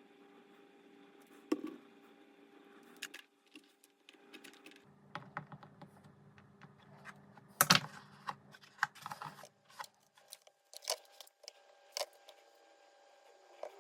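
Scattered light clicks and taps as small wooden model-kit parts are cut free and handled at a workbench, with one sharper knock a little past the middle.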